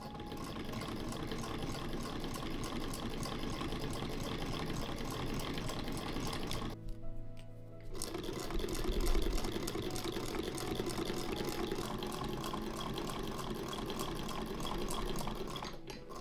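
Antique sewing machine stitching, a fast, even run of needle clicks. It stops for about a second some seven seconds in, then starts again and runs on until just before the end.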